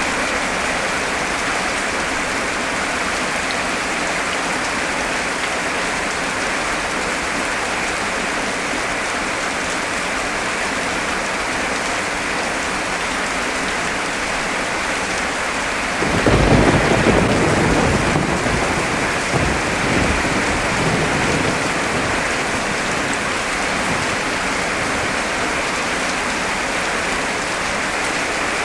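Heavy rain pouring steadily. A little past halfway, a roll of thunder starts suddenly, rumbles low for a few seconds with a second swell, and fades away.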